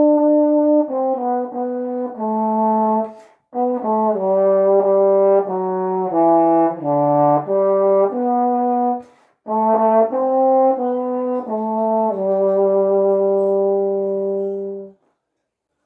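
Solo trombone playing a slow hymn melody in sustained notes, in phrases broken by two short pauses. The last phrase ends on a long held note shortly before the end.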